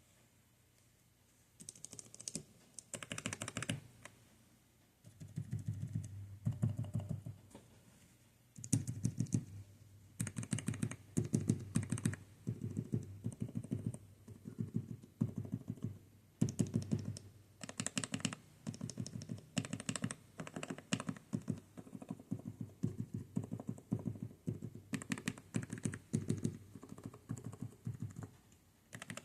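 Kailh Choc V2 low-profile mechanical key switches pressed in quick runs of sharp clicks and clacks, in bursts of a second or two with short pauses between, starting about a second and a half in.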